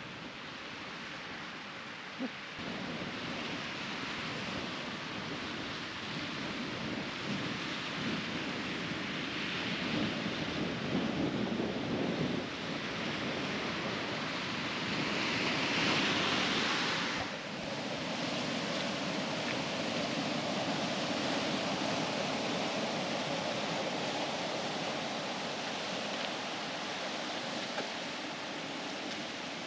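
Wind and ocean surf hissing steadily, swelling twice along the way, most strongly just past the middle.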